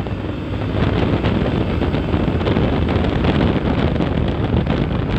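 Steady wind rushing over the microphone of a moving motorcycle, with engine and road noise underneath.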